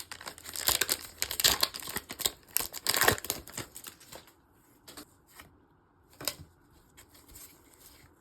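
Foil Pokémon booster pack wrapper crinkling and being torn open for about three seconds, followed by a few faint ticks.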